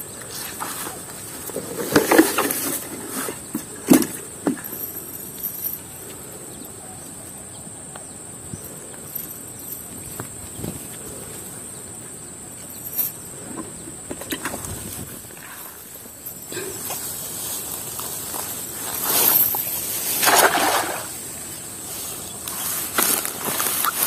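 Irregular water splashing and sloshing from wading and handling a cast net in a shallow river, loudest about two and four seconds in and again around twenty seconds in, over a steady high-pitched drone.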